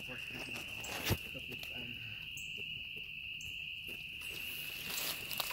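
A steady, high-pitched chorus of small calling creatures from the swamp, with a single sharp knock about a second in.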